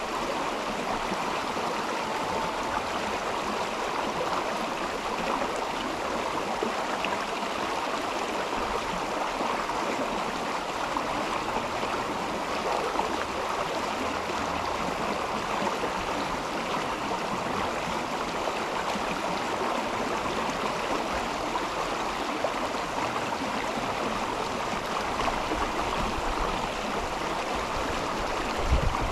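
Mountain river flowing, a steady rush of water. A brief low bump comes near the end.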